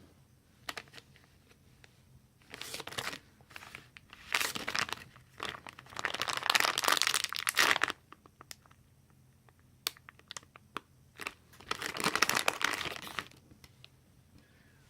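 Plastic packaging crinkling as a squishy toy is handled, in four bursts, the longest about two seconds, with light clicks and ticks between.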